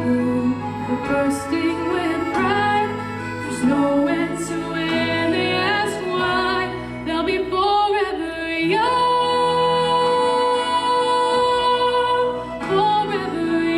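A woman singing with instrumental accompaniment; about nine seconds in she holds one long note for several seconds.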